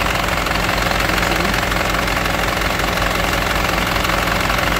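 Mercedes-Benz bus engine idling steadily, heard up close at its belt drive with the alternators and pulleys turning.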